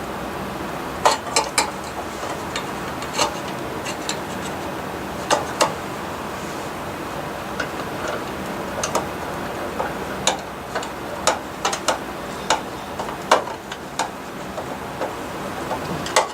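Irregular sharp metallic clicks and taps as the thermostat's mounting screws are handled and driven into the baseboard heater's sheet-metal housing, over a steady low hum.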